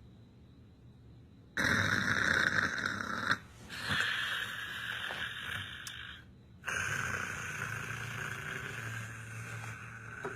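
A person snoring: three long, rasping breaths, each starting abruptly, the first about a second and a half in and the last slowly fading.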